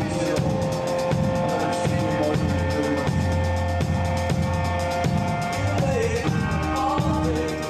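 Live band music: an electric bass guitar holds low notes under a drum kit keeping a steady beat, with a sustained higher tone from another instrument above.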